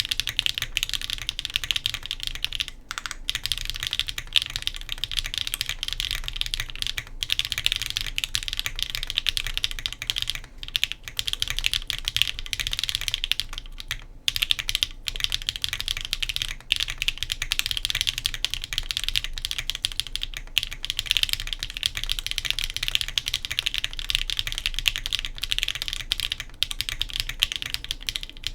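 Steady, fast typing on an Argalia custom mechanical keyboard built with HMX Jammy switches, an aluminum plate, a top-mount case with a copper bottom, no dampening, TX AP stabilizers and GMK keycaps. The key strokes come densely packed, with a few short pauses.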